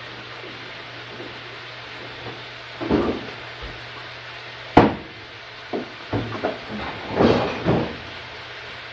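Kitchen knocks and clatter: a short rustle about three seconds in, one sharp knock near the middle, then a few lighter knocks and rattles, over a steady low hum.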